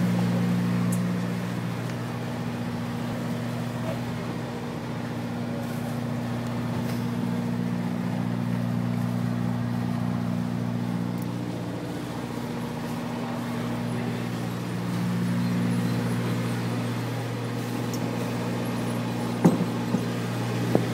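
Fishing boat's engine running with a steady low hum, its level rising and falling slightly. Two sharp knocks near the end.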